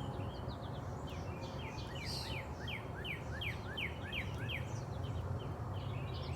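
A songbird singing a run of about a dozen quick downward-slurred chirps, roughly three a second, from about a second and a half in until just under five seconds, over a steady low background hum.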